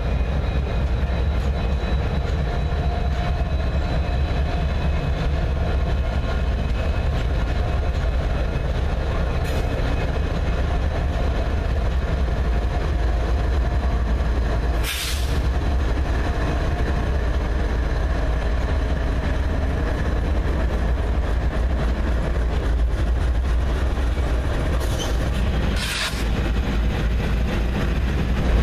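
Diesel-hauled freight train passing close by: a steady, heavy rumble of locomotive engines and wheels on the rails. Two short bursts of hiss come about halfway through and again near the end.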